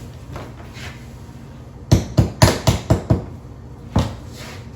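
Knocking on a wall: six quick hard knocks, then one more about a second later. The knocks are a signal through the wall so that someone on the other side can tell where the wire needs to come up.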